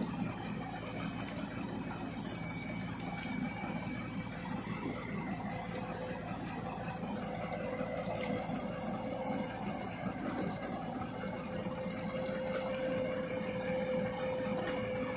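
Diesel engines of a Ford 3600 tractor and a JCB 140 tracked excavator running together at low speed as the tractor works through mud and water, with a steady hum that rises slightly in pitch in the second half.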